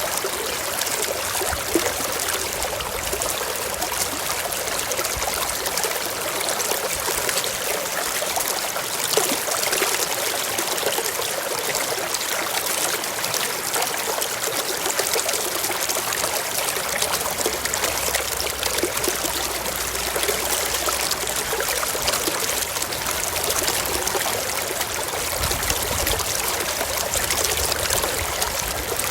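Waterfall: water cascading in a steady, even rush of noise.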